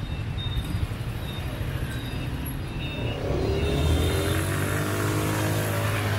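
Motorbike traffic at a city intersection, with a low steady engine hum and road noise and faint short high beeps in the first half. About three seconds in, a nearby motorbike engine accelerates, its pitch rising as it gets under way.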